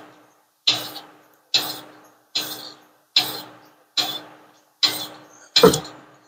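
Evenly spaced metallic clicks, seven of them about one every 0.8 s, each with a short ringing tail, as a transmission is lifted into place under a car, over a faint steady hum.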